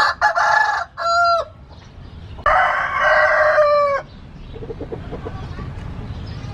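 Gamecock rooster crowing twice, a harsh, loud cock-a-doodle-doo ending in a falling note. The second crow comes about a second and a half after the first ends.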